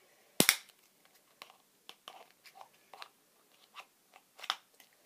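Small plastic Shopkins Click-It baskets being handled and clicked together: a sharp loud snap about half a second in, then scattered light plastic clicks and taps, and another sharper click near the end.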